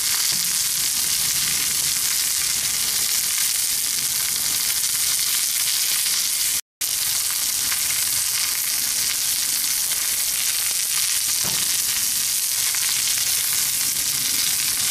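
Steady sizzling of bison patties on a hot cast iron grill grate over a live fire, with mushrooms frying in oil in a small cast iron skillet beside them. The hiss cuts out for a split second a little past the middle.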